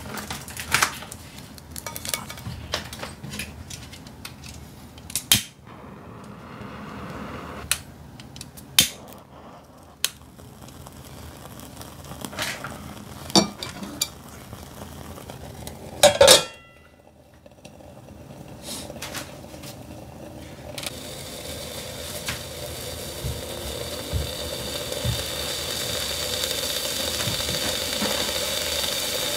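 Metal clinks and knocks as a tabletop grill pot and its burner are handled, with one loud clatter about halfway. Then raw beef sizzles on the hot grill pan, a steady hiss that grows louder toward the end.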